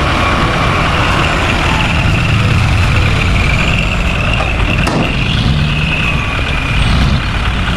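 Heavy truck engine running steadily, with a thin high whine above it.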